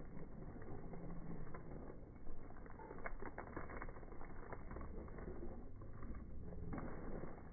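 Faint rustling and scattered light clicks from boxes and bags being handled and carried, with a quick run of clicks about three seconds in.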